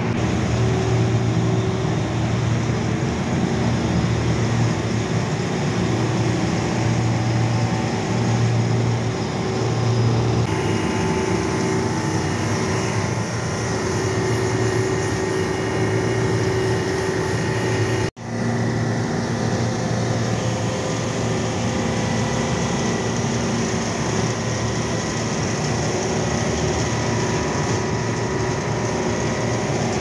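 Steady mechanical running noise with a constant low hum, breaking off for an instant about eighteen seconds in.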